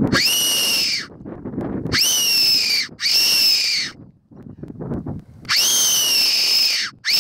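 Stainless-steel Tenterfield-type fox whistle blown in four very loud, shrill squealing calls, with a fifth starting at the end. Each call jumps up in pitch and then sags slightly before it breaks off, with breathy pauses between calls. It is blown to call foxes in.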